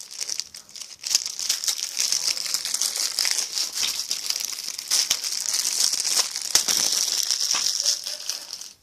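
Plastic wrapping on a DVD case crinkling and crackling as it is pulled off and crumpled, a dense run of sharp crackles with a short lull about a second in.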